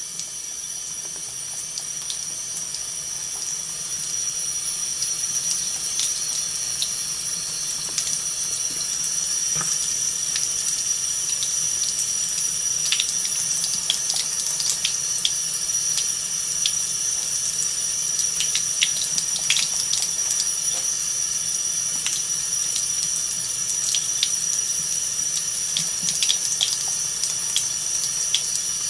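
Thin stream of water running from a kitchen faucet into the sink: a steady hiss, broken by small irregular splashes and ticks as a cat laps at the stream.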